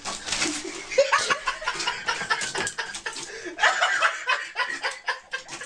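A person laughing in short, choppy bursts.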